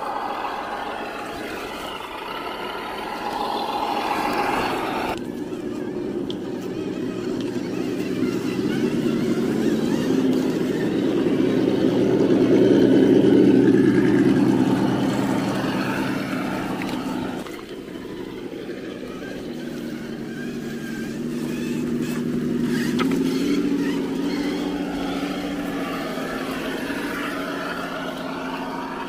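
Electric motor and geared drivetrain of a radio-controlled scale crawler truck whining steadily as it crawls over rocky trail, growing louder toward the middle and changing abruptly twice.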